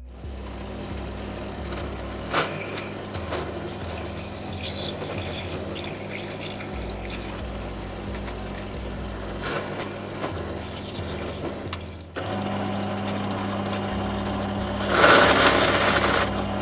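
Bench drill press running with a steady motor hum while a twist bit cuts into aluminium T-slot extrusion; the cutting grows loudest in the last second and a half.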